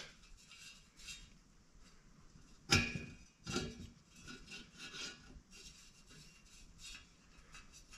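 Faint metal clicks and rubbing as a blower fan blade's hub is turned and worked down onto its motor shaft by hand, with one sharper click about three seconds in.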